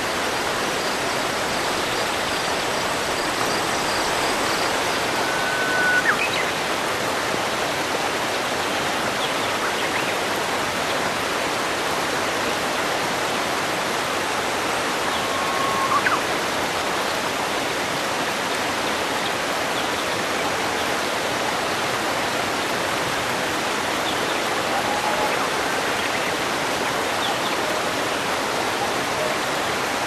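Steady rush of falling water from a waterfall. A short whistle-like note with a quick upward flick cuts through it about six seconds in, and again about ten seconds later.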